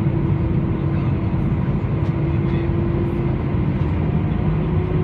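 Airbus A320-214 airliner in flight: a steady low rumble of engines and airflow with a constant hum running through it.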